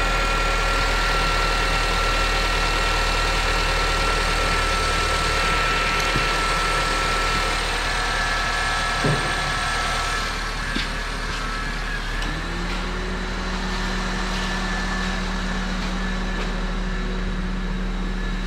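Car engine idling steadily with no squeal from the power steering, its fluid freshly topped up to the maximum mark. About twelve seconds in, a steady low hum joins.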